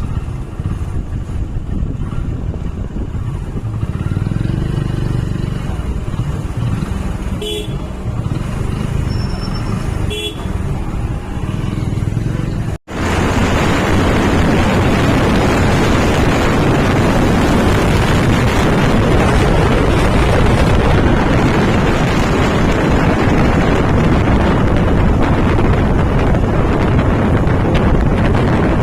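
Motorbike riding along a highway: steady engine and road rumble with two short horn toots about halfway through the first half. After a sudden cut near the middle, loud wind buffeting on the microphone takes over.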